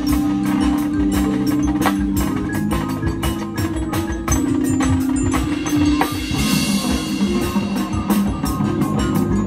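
Marching band playing, led by the front ensemble's marimbas and other mallet percussion striking rapid notes over sustained low tones.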